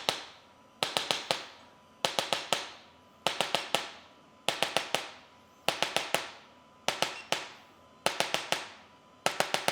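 Sharp cracking pops in quick clusters of four or five, the clusters repeating at an even pace about every 1.2 seconds.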